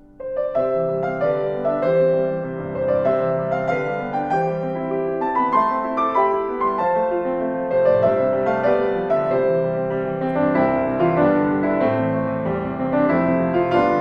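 Solo piano playing a gentle melody over flowing chords. A new passage comes in suddenly just after the start, after a fading chord, and the notes then continue steadily.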